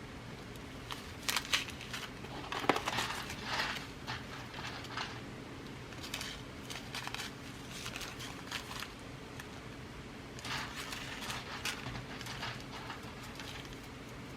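Rustling and small sharp clicks as glass seed beads are rummaged through and handled, coming in irregular clusters with the loudest bursts in the first three seconds. A faint steady hum lies underneath.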